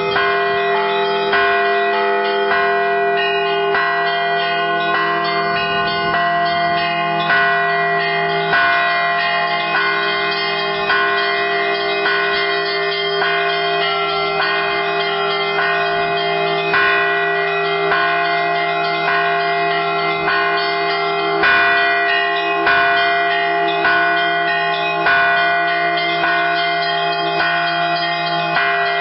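Church bells rung by hand in a continuous Easter peal: several bells of different pitches struck in quick succession over the sustained hum of the large bells, with a louder stroke about every one and a half seconds.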